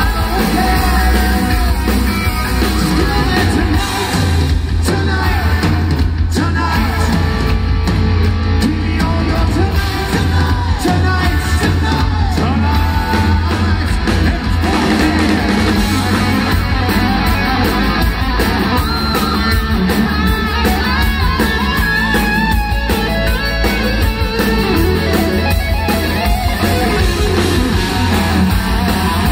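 A melodic hard rock band playing live: a male lead singer over distorted electric guitars, a drum kit and keyboards, steady and loud throughout.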